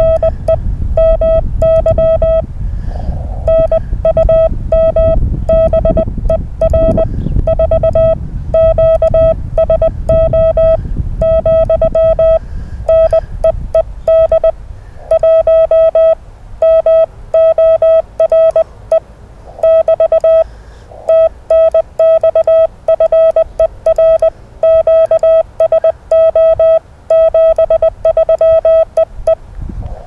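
Morse code (CW) from a ham radio transceiver: a steady pitched tone keyed on and off in dots and dashes, with a low rumble underneath during the first half.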